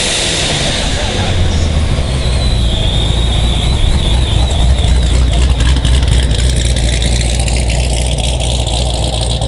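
Chevrolet C7 Corvette's V8 running at low revs as the car rolls slowly past and pulls away, a steady deep exhaust drone.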